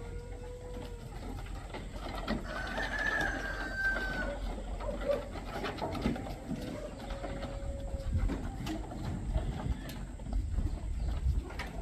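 Rooster crowing among farmyard chickens, several long drawn-out calls over a steady low rumble and scattered knocks.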